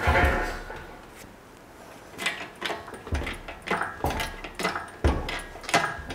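Irregular knocks and clanks of hands-on work on the pickup's front frame and engine hoist: one loud knock at the very start, then a string of about eight sharper knocks and taps from about two seconds in.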